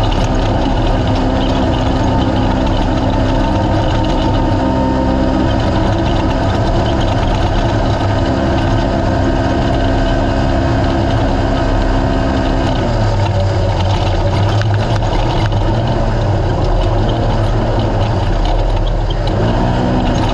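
Naturally aspirated race UTV engine running hard and steadily. Its pitch drops about 13 seconds in and climbs again near the end.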